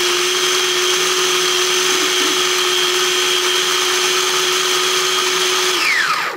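Small electric food processor running steadily with a constant whine, grinding garlic and onion with a little oil and salt into a seasoning paste. Near the end it is switched off and the whine falls away as the blade spins down.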